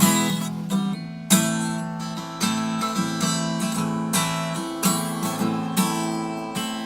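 Acoustic guitar strumming chords in an instrumental passage of a song, with a sharp new strum every second or so and the chords ringing on between them.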